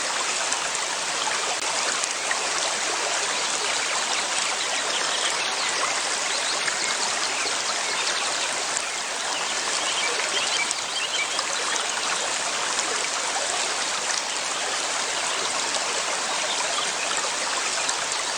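River water flowing over stones, a steady rushing and trickling with no change in level.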